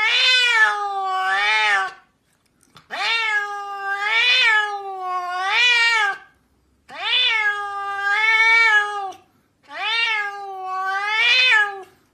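Cat meowing in four long, drawn-out calls with short pauses between, each one wavering up and down in pitch.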